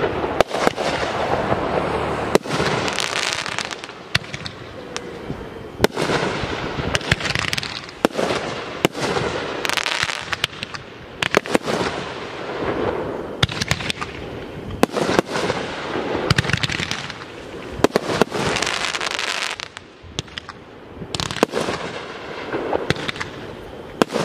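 Aerial fireworks display: sharp shell bursts go off again and again, with a dense crackling between them.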